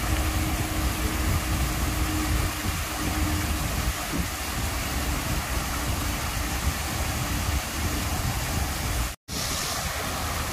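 Small artificial garden waterfall pouring over a rock wall into a lily pond: a steady rush of falling water with a low rumble underneath. It cuts out for an instant about nine seconds in.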